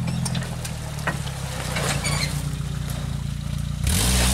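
Suzuki Vitara 4x4's engine running low and steady at crawling speed, with scattered sharp clicks and knocks. Near the end the sound jumps to a louder engine with a strong hiss of the tyres splashing through muddy water.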